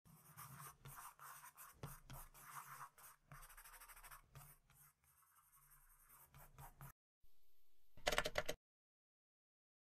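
Pen strokes scratching on paper, quick and uneven, as a line drawing is sketched, for about seven seconds. Just after eight seconds a brief, louder sound effect.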